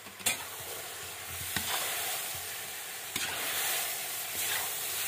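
Chopped tomatoes drop into a hot cast-iron kazan of fried chicken legs and onions and begin to sizzle. A metal slotted spoon then stirs the pot, knocking against it a few times, over a steady sizzle.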